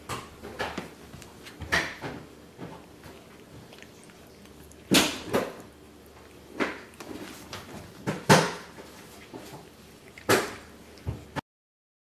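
A house cat grooming itself, its tongue licking its fur in irregular short clicks, a few of them louder than the rest.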